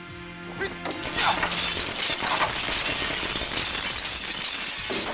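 Strings of light bulbs bursting and sparking and glass shattering, as a dense, continuous crackle that starts about a second in and lasts about four seconds.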